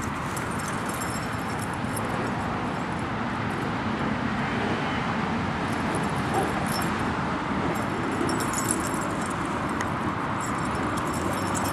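Steady road-traffic noise, with bursts of metal jingling from the dogs' collar tags as they jump and play; the jingling comes and goes several times.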